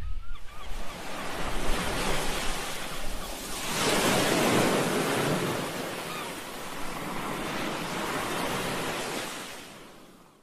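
Rushing waves and wind over open water: a steady noise that swells about four seconds in and fades away near the end.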